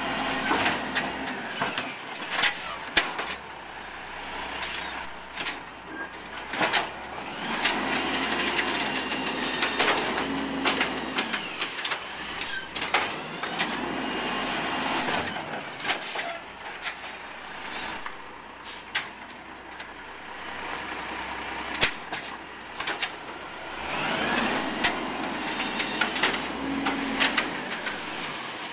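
Amrep automated side-loader arm on a 2005 Peterbilt 320 garbage truck working through several trash carts in a row. Each cycle brings a whine that rises and falls as the arm lifts and lowers, and sharp knocks as the cart is shaken out over the hopper, over the truck's low running engine.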